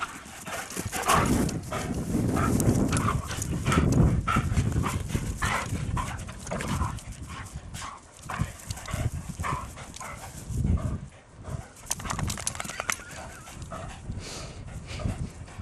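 Greyhounds playing rough: short barks and yaps over a busy clatter of paws and claws.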